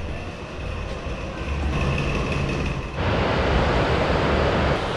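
A low steady rumble with a faint hum, then about three seconds in a sudden cut to the even, louder rushing of the fast-flowing Ganges over rocks.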